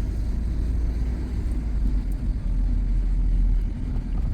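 Honda Civic engine running under way with a steady low rumble, making a horrible noise from a rod knock.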